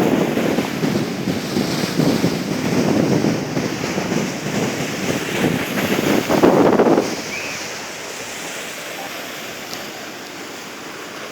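Sea surf washing onto the shore, with strong wind gusting across the microphone; the gusts ease after about seven seconds.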